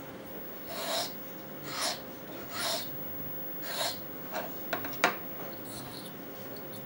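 A fine sharpening stone scraping along the point of a fishing hook held in a hook vice: four strokes about a second apart, then several lighter, quicker strokes with a small click about five seconds in. The strokes take off the side edges left on the hook point after earlier honing.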